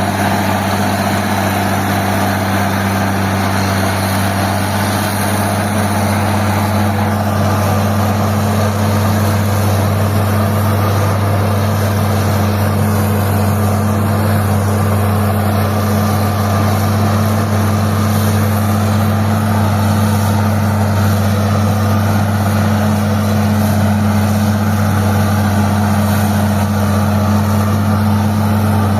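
Old Caterpillar D6 crawler tractor's diesel engine running steadily at a constant speed with a deep, even rumble.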